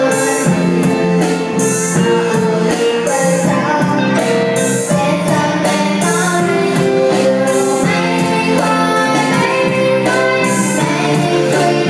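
A young girl singing through a microphone and PA, backed by a live band with electric guitar and keyboard, with hissy cymbal-like percussion strokes recurring through the song.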